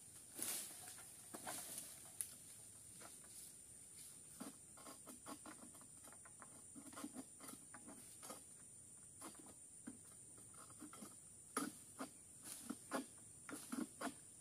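Scattered faint knocks and rustles of a long-poled harvesting sickle (egrek) working among oil palm fronds, over a steady high-pitched insect drone. The knocks come more thickly near the end.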